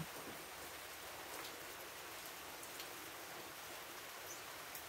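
Steady rain falling: an even hiss with a few faint ticks of drops.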